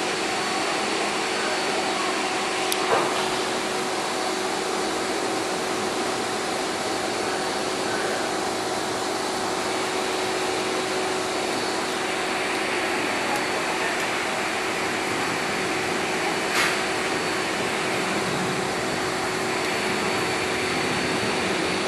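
Steady machine hum and rush of air from a motor-driven fan or blower, carrying a few steady tones. Two brief clicks from the lens being handled come about three seconds in and again past the middle.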